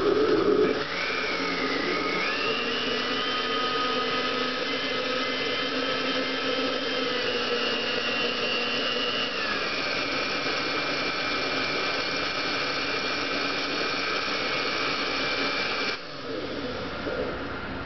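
Antique 1950s US-made PB20 electric blender motor running with a steady whine, loudest in the first second. The whine steps up in pitch a couple of seconds in and drops to a lower, steady pitch about halfway through. The motor cuts off sharply near the end.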